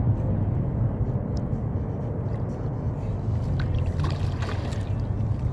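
Steady low rumble of wind on the microphone, with a brief splash of water about four seconds in as a landing net scoops a hooked trout in the shallows.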